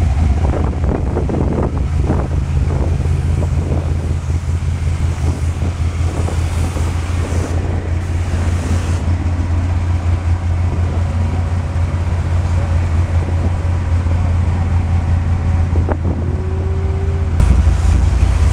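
Engine of a 1974 full-size convertible running at a steady idle with a deep exhaust note, getting a little louder near the end.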